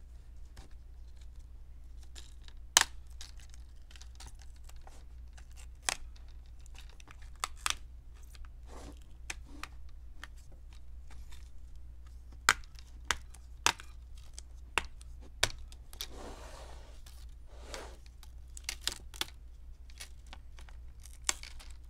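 Laptop display bezel being pried off with a pry tool against its double-sided adhesive: a scatter of sharp clicks and snaps, the loudest about three seconds in, and a couple of short rasping peels of the tape letting go about three-quarters of the way through.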